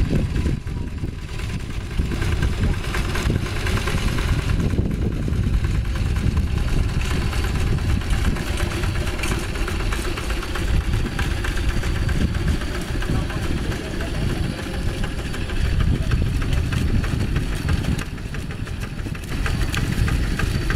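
Single-cylinder diesel engine of a Quick two-wheel hand tractor running steadily under load as its cage wheels churn through a flooded rice paddy.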